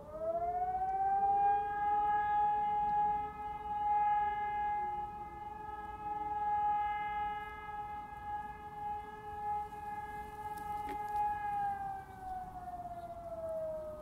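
Hörmann ECI 600 electronic siren sounding one long tone. The tone swells up at the start, holds a steady pitch for about eleven seconds, then winds down in pitch near the end.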